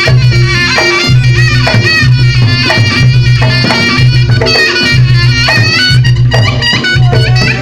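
Reog Ponorogo music: a slompret, the shrill double-reed shawm, plays a wavering melody over drums and a low gong tone that repeats about once a second.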